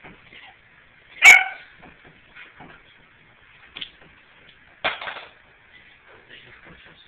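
Standard poodle barking twice during tug-of-war play: a loud, sharp bark about a second in and a second, rougher bark near five seconds, with light rustling between.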